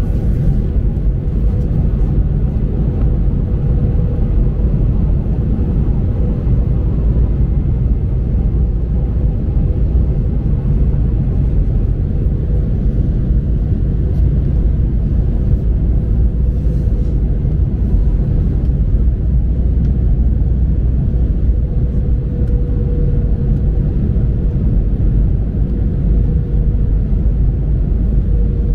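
Steady low rumble of engine and cabin noise inside an Airbus A319 airliner, with a faint constant hum above it.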